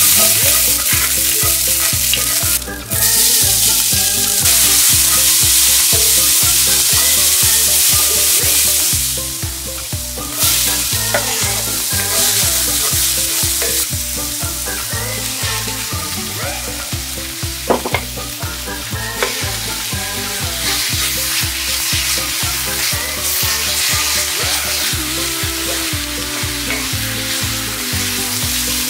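Garlic, onion, mushrooms and bacon sizzling in olive oil in a cast-iron skillet, stirred with a wooden spatula. The sizzle is loudest in the first several seconds and eases off about nine seconds in. Background music with a steady beat runs underneath.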